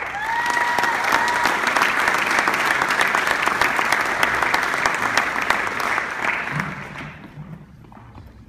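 Audience applauding: dense clapping that starts at once and dies away over the last couple of seconds, with a brief high call in the first second or so.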